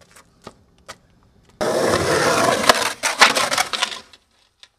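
Skateboard wheels rolling loudly on rough concrete, starting suddenly about one and a half seconds in. Sharp cracks of the board and a slam follow near the end as the skater falls, and the noise stops about four seconds in. A few light knocks come before it.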